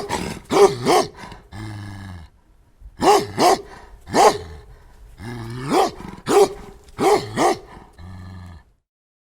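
Angry dog barking repeatedly, the barks mostly coming in pairs, with low growls between them; it stops shortly before the end.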